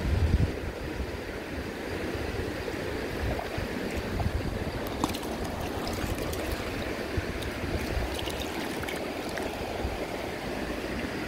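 River water running over a rocky bed, a steady rush, with wind buffeting the microphone at the very start. From about five seconds in, a few light clicks and small splashes come over the rush.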